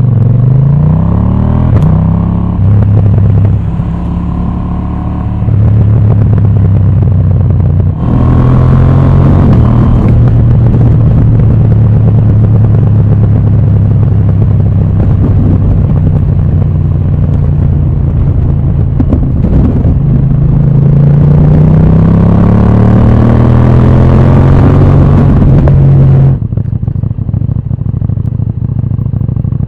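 Motorcycle engine pulling hard, rising in pitch as it accelerates, holding a steady note at speed, then rising again, with heavy wind rush on the helmet-mounted microphone. About three-quarters of the way through the throttle is shut: the wind rush and engine level drop suddenly.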